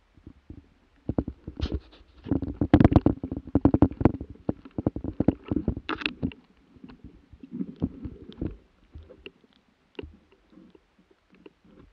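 Spruce branches and twigs brushing and scraping against a body-worn action camera and clothing, with footsteps in thin snow. A dense flurry of rubbing and knocks starts about two seconds in and thins to scattered knocks after about six seconds.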